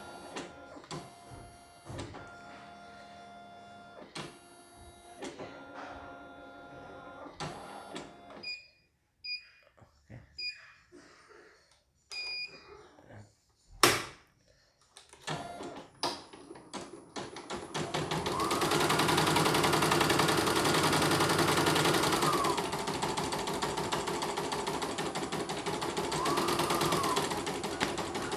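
Portable computerized embroidery machine: short spells of steady motor hum and a few short beeps, a sharp click, then the needle starts stitching about halfway in, in a fast even rhythm. Its motor pitch rises as it speeds up, drops back, then rises briefly again. The repaired machine is running a design.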